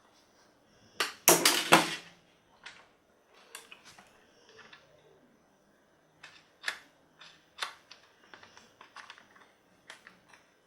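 Plastic clicks and knocks from a toy RC car and its remote being handled, with a loud cluster of several knocks about a second in and lighter, scattered clicks after.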